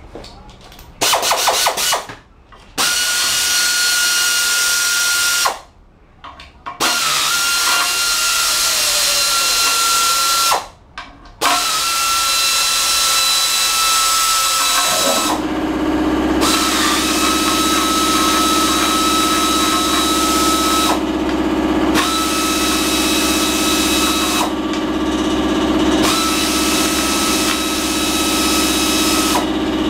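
Power tool spinning bolts out of an automatic transmission case, a hissing whine that runs for a few seconds at a time with short pauses between. About halfway through, a steady low hum joins in.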